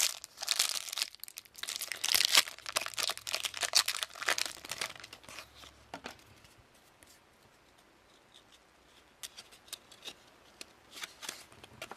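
A trading card pack's wrapper being torn open and crinkled, with dense rustling for about five seconds. It then goes quiet, and a few light clicks follow near the end.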